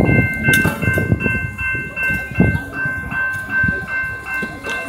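Railway level-crossing warning bell ringing in a steady repeating pattern, about two strokes a second, over voices and street noise at the crossing while a freight train approaches.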